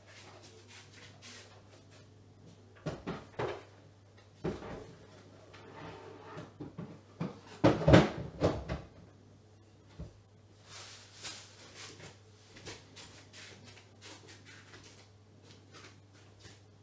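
Scattered knocks and bumps of things being handled by someone moving about a small room, the loudest cluster about eight seconds in, over a steady low hum.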